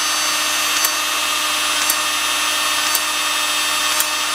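Powered Uponor ProPEX expansion tool running steadily, its expander head clicking about once a second as it opens and rotates inside a PEX pipe end and ring, stretching them to take a fitting.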